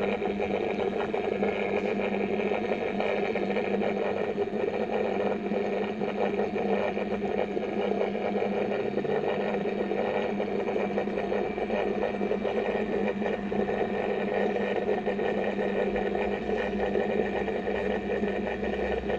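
A motor running with a steady hum that does not change, with a deeper rumble coming in near the end.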